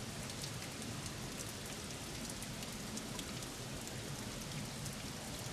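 Water dripping and splashing steadily onto a soaking-wet, mossy rock wall: many small drop ticks over a steady hiss.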